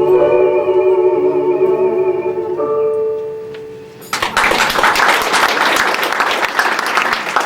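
A song ends on a long held closing note with vibrato over guitar accompaniment and fades out. About four seconds in, audience applause breaks out and continues.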